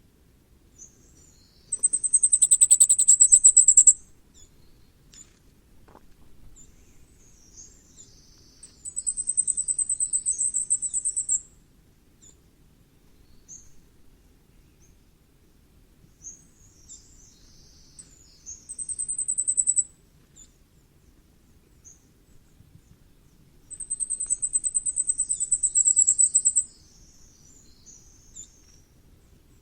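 Common firecrest singing: four phrases of very high, thin, rapidly repeated notes, each swelling in loudness, with soft high call notes between them.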